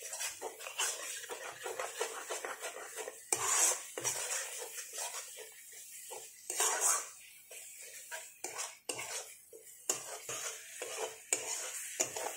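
Metal spatula scraping and stirring a thick spice paste around a metal kadai in irregular strokes, a few of them louder. This is the masala being fried down in oil.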